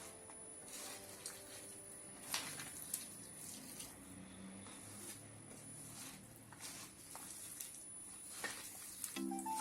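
Hands mixing vegetable peels in a bowl with flour, spices and a little water: faint scattered clicks and soft rustles.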